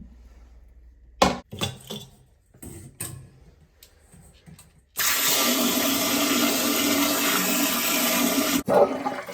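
A few knocks and clatters, then about four seconds of loud, steady rushing water that stops abruptly.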